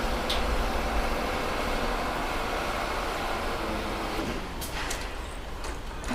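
A heavy vehicle's engine rumbling steadily, then dying away about four seconds in, followed by a few faint clicks.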